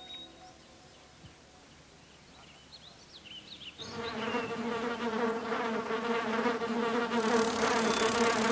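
Giant-bee sound effect: a steady insect buzz that starts about four seconds in and grows louder, with a few faint high chirps just before it.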